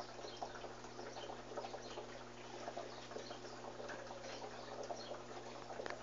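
Electrolux 13 kg washing machine running: a steady low hum with irregular small splashes and clicks of water moving in the tub.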